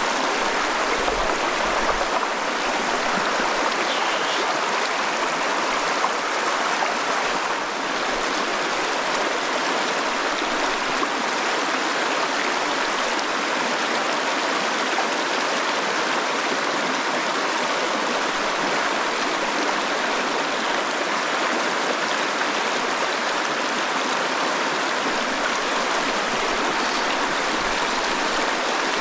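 Stream water running steadily, an even wash of water noise close to the microphone.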